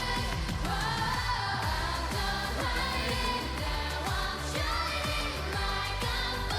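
Live K-pop performance: female vocals singing over a pop backing track with a steady beat.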